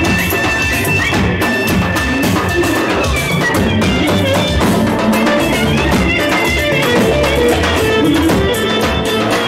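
Music with a steady drum beat under held melody notes, running without a break.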